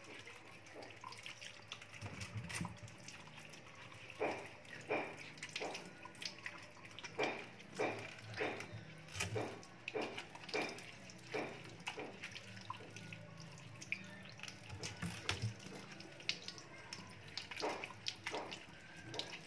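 Tap water running into a stainless steel sink while hands scrub a bunch of unripe green bananas under it. Splashing, rubbing strokes come about one a second through the middle and again near the end.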